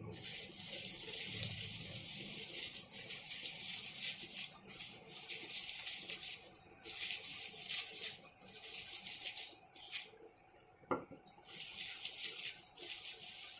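Roasted peepal leaves being rubbed through a fine mesh sieve by hand: a dry, scratchy rasping in spells that stop and start, with a sharp click about eleven seconds in.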